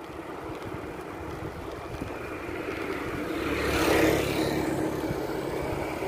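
A motor vehicle passing, its engine and tyre noise rising to a peak about four seconds in and then easing off, over steady road and wind noise.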